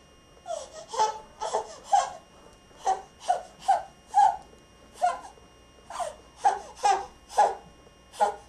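Baby laughing in short high squeals, about two a second, with brief pauses between runs.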